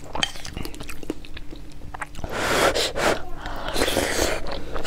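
Close-miked eating of tomato and egg over rice: chewing and lip-smacking clicks, then two longer breathy noises about halfway through and near the end as a spoonful is taken in.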